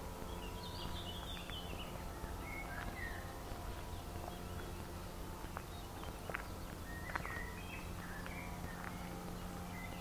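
Woodland songbirds singing short chirping phrases, near the start and again in the second half, with scattered footsteps on a dirt forest path.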